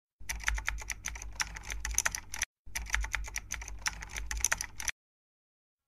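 Rapid computer keyboard typing, the keys clicking in two runs of a little over two seconds each with a short break between, over a low hum. The typing stops about a second before the end.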